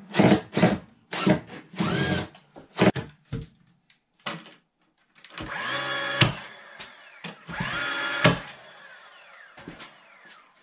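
Power drill run in a string of short trigger bursts, then two longer runs of under a second each that rise in pitch as the motor spins up and then hold steady.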